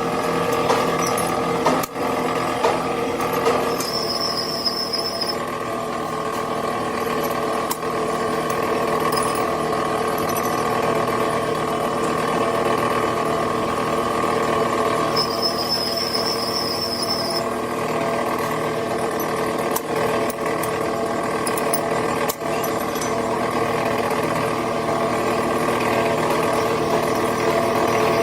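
A workshop power tool running steadily, with a high squeal that comes in briefly twice.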